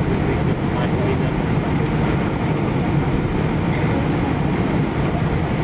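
Cabin noise inside an Airbus A320-212 taxiing: the engines running at low taxi power together with the low rumble of the aircraft rolling over the taxiway, steady throughout.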